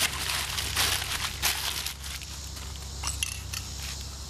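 Used masking tape crumpled into a wad by hand: a run of crackling crinkles for about two seconds, then quieter with a few light clicks.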